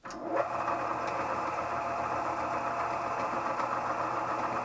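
Harbor Freight mill-drill switched on: the electric motor and spindle start suddenly and settle within half a second into a steady running hum. The fly cutter spins free, not yet lowered to the workpiece.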